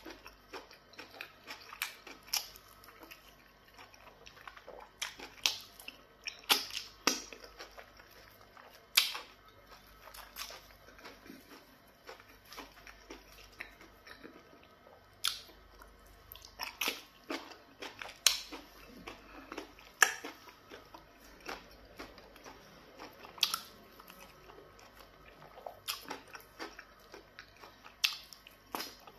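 Close-up chewing and eating sounds of a person eating pounded yam fufu with black soup by hand: irregular sharp mouth smacks and clicks, some loud, scattered throughout with quieter chewing between.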